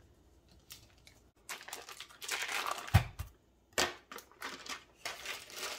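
Foil wrapper of a block of cream cheese being peeled open and crinkled in the hands, in patches from about a second and a half in. A soft thud about three seconds in as the block drops into a mixing bowl.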